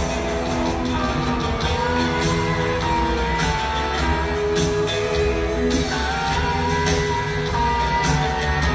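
Live rock band playing an instrumental passage: electric guitar playing held lead notes over bass and drums.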